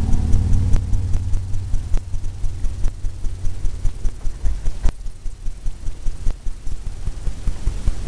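Paintbrush dabbing quickly against a stretched canvas, a rapid run of low thuds several times a second, with a few sharp clicks.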